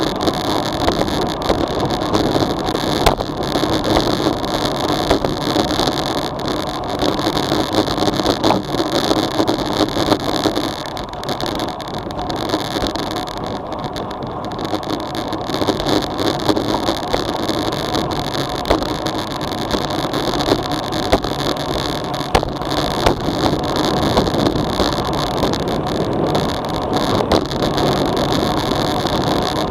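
Wind rushing over a bike-mounted action camera's microphone along with tyre and road noise from a road bike descending at about 30 km/h, with many small knocks and rattles throughout. It eases a little about halfway through as the speed drops, then picks up again.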